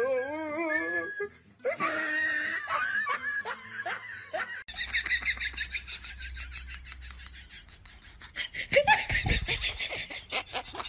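Laughter: rapid, high-pitched giggling that runs for several seconds after an abrupt change about halfway in. Before the change, a voice cries out with a wavering pitch.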